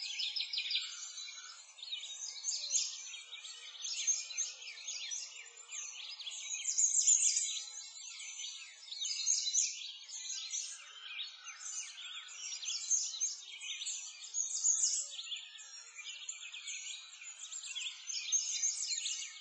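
Dense chorus of many small birds chirping and singing at once, continuous throughout, swelling and dipping in loudness, with no low sounds beneath it.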